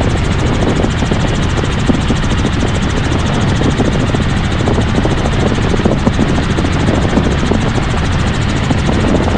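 Helicopter in flight: a steady, unbroken drone of engine and rotor noise.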